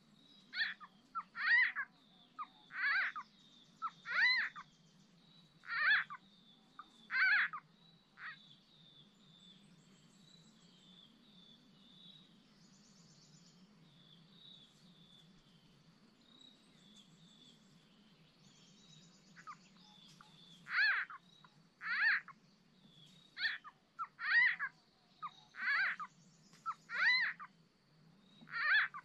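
Small frogs (nhái) calling, played as a lure recording: a run of about seven short calls, roughly one a second, then a lull of about twelve seconds. Another run of about seven calls follows near the end.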